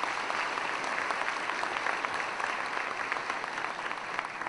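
Audience applauding steadily in a large hall, a dense patter of many hands clapping at once.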